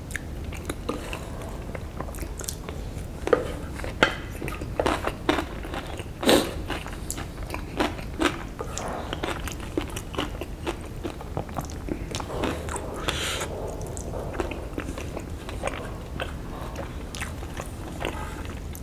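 Close-up chewing and mouth smacking from eating the last bits of instant noodles and tofu, with a wooden spoon scraping and tapping the plate. Sharp clicks are scattered throughout, the loudest about three, four and six seconds in.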